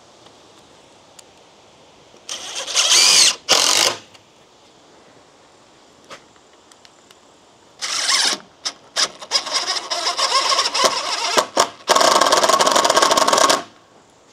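Power drill-driver driving screws into timber: two short runs about two seconds in, then after a pause a string of quick trigger pulses and a final steady run of about a second and a half.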